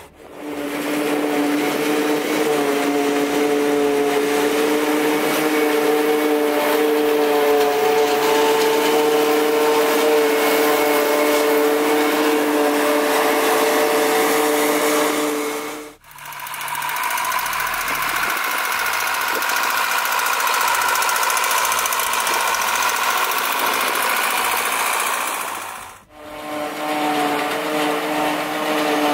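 Tractor and self-propelled forage harvester engines running steadily while working a silage field, in separate shots joined by brief fades. The middle stretch carries a higher whine than the lower engine tones on either side.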